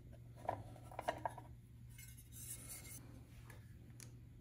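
Faint clicks and taps of a black plastic motor terminal-box cover being handled and pulled off a bandsaw motor, with a soft scrape a little past two seconds in.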